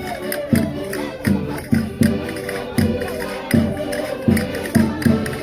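Concertinas playing a lively traditional Minho folk dance tune in held chords, over a steady low drum beat about twice a second.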